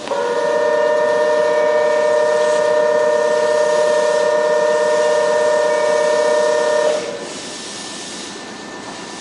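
Platform departure signal sounding before the train leaves: a loud, steady two-tone electronic ringing held for about seven seconds, then cutting off suddenly, leaving quieter station background noise.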